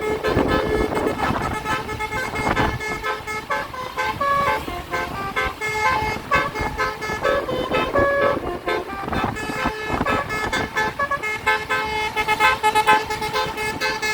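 A tour bus's telolet basuri horn playing a tune, held notes stepping up and down, over road and engine noise.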